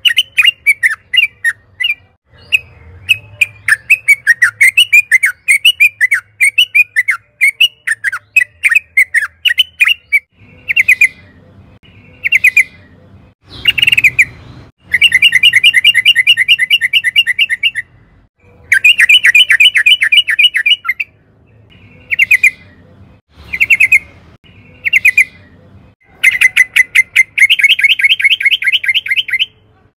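Yellow-vented bulbul singing: a steady run of quick bubbling chirps for about ten seconds, then short phrases broken by rapid trills that come in bursts of two to three seconds.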